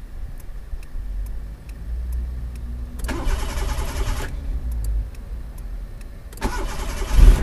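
Proton Wira being test-started on a newly fitted fuel pump: the starter cranks in a burst about three seconds in, then again near the end, when the engine catches. The engine firing shows that the replacement fuel pump is delivering fuel.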